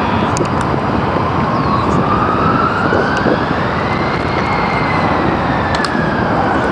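A distant siren wailing, one slow rise in pitch that peaks about four seconds in and then falls, over a loud steady rushing background of traffic noise.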